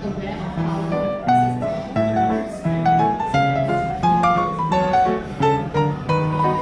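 Background music: a melody of short, evenly paced notes, a few to the second.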